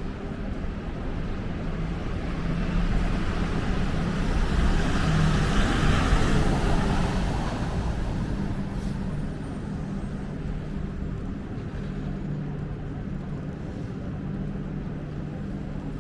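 Street traffic: a vehicle passes, its tyre and engine noise swelling to a peak about six seconds in and fading away, over a steady low engine hum.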